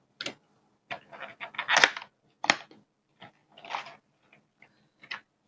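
A small product box being opened by hand: a run of separate clicks, taps and short scraping rustles of the packaging, the loudest a brief scrape about two seconds in.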